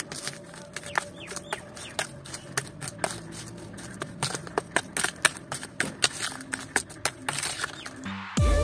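Miniature trowel mixing cement powder and water in a stainless steel bowl: irregular scrapes and sharp clicks as the blade stirs the mortar and knocks against the bowl.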